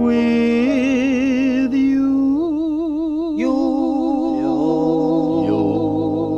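Slow 1950s-style vocal music: voices hold long notes with wide vibrato and move to new notes every second or so, with a low held note joining about four seconds in.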